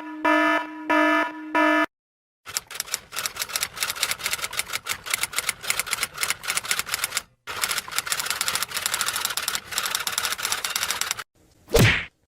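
Sound-effect sequence: four short electronic beeps, then a long run of rapid typewriter-like key clicks with one brief pause midway, then a quick whoosh near the end.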